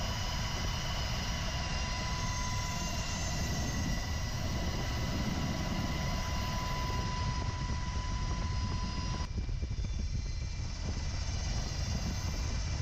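Steady aircraft engine noise: a heavy rumble with a high, even whine over it, as heard aboard the aircraft filming. The whine stops abruptly about nine seconds in, leaving the rumble.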